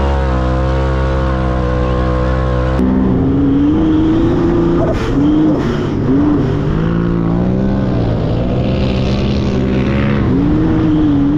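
An off-road side-by-side's engine running at a steady speed. About three seconds in it switches to a turbocharged Honda J35 V6 sand rail's engine, revving up and down several times with throttle lifts as it climbs the dunes.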